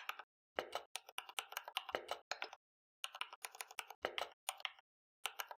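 Computer keyboard being typed on: quick runs of key clicks, broken by two short pauses.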